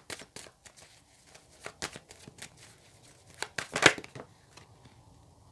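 A deck of tarot cards being shuffled by hand, with quick flicks and slaps of card on card coming in clusters, loudest about two-thirds of the way through, then thinning out.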